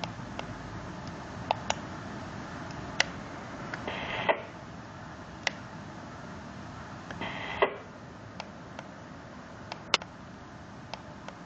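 Zastone MP600 VHF transceiver: sharp clicks of its channel selector knob being turned over a steady hiss, with two short bursts of electronic beeping tones, one about four seconds in and one about seven and a half seconds in.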